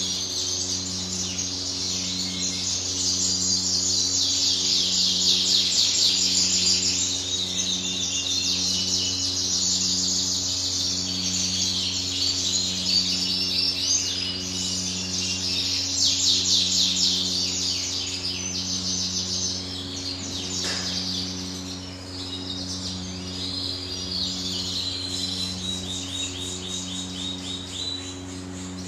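Caged European goldfinches singing and twittering, fast trills and chirps that carry on all the way through. A steady low hum with a pulsing throb about once a second runs underneath.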